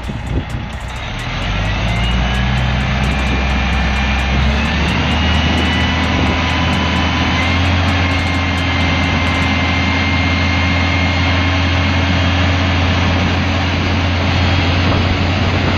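Heavy dump truck's diesel engine revving up in the first two seconds, then running hard and steady under load as it pulls the loaded tipper trailer, with a high whine over the drone.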